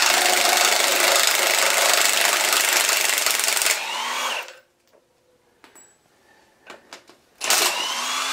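Cordless impact wrench hammering on an exhaust manifold nut of a Toyota 3B diesel engine, loosening it, for about four seconds before the motor winds down. After a pause with a few light clicks, it gives a second short run, spinning up, near the end.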